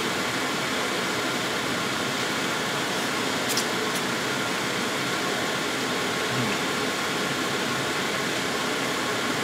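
Steady hiss and hum of a fan running, with a couple of faint clicks about three and a half seconds in.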